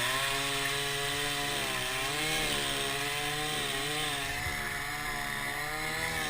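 Chainsaw revving up and running at high speed, cutting into the trunk of a date palm, its pitch wavering slightly as the load on the chain changes.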